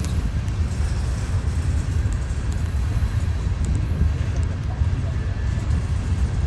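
Freight train of covered hopper cars rolling past close by: a steady low rumble of steel wheels on rail.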